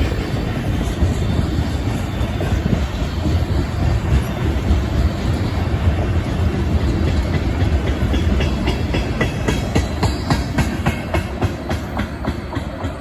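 Union Pacific freight train's cars rolling past with a steady heavy rumble; in the second half the wheels' clicks over the rail joints come through clearly in a quick even rhythm.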